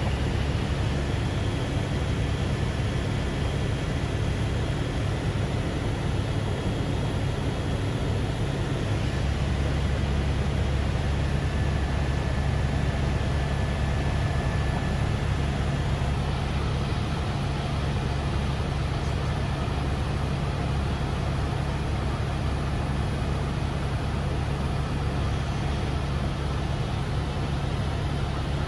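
Steady drone of a vehicle in motion, heard from inside. A deep, constant engine hum with a few steady low tones sits under an even rushing noise.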